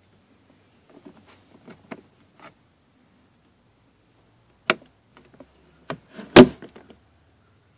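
Plastic glove box of a 2006 Toyota RAV4 being pushed back up into the dash: a few faint rattles, then a sharp click about halfway and a louder knock about a second and a half later as it catches back into place.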